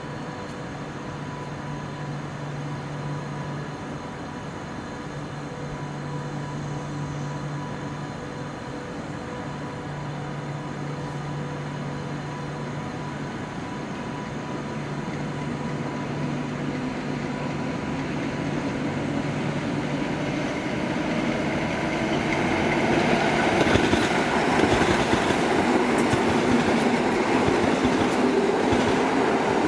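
PKP EN71 electric multiple unit pulling away and drawing nearer. A steady hum gives way in the second half to the train's growing noise, with a motor whine that rises in pitch as it picks up speed. Near the end the wheels click over the track.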